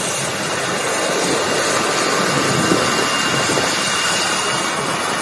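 Helicopter's turbine engine running on the ground: a steady, loud rush of noise with a faint high whine held throughout.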